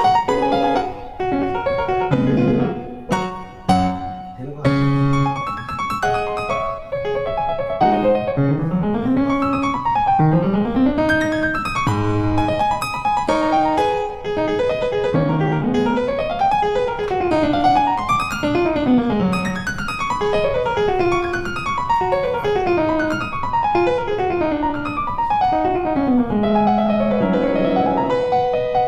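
Background piano music, with runs of notes rising and falling.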